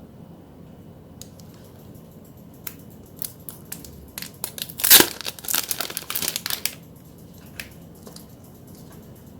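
Packaging crinkled and torn open by hand. Scattered crackles build to one loud rip about halfway through, followed by a second or so of dense crinkling that then stops.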